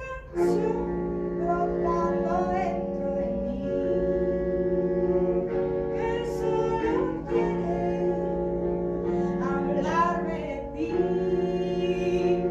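Saxophone quartet of soprano, alto, tenor and baritone saxophones playing slow, sustained chords, coming in about half a second in.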